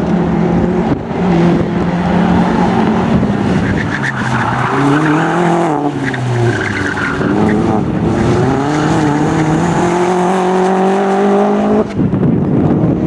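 Opel Astra OPC racing car's engine at full effort: its pitch drops and climbs again around the middle, with tyres squealing briefly, then rises steadily on a long pull before dropping suddenly near the end.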